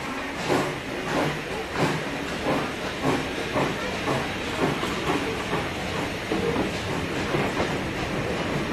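Steam locomotive pulling a train away: sharp exhaust chuffs, at first about one every two-thirds of a second and quickening, over a steady hiss of steam and the rolling of the coaches.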